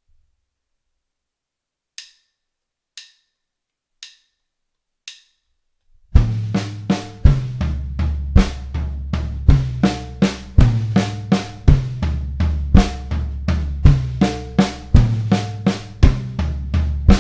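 Four drumstick clicks about a second apart as a count-in, then a drum kit plays a slow triplet fill around the snare and three toms over steady quarter notes on the bass drum, the toms ringing.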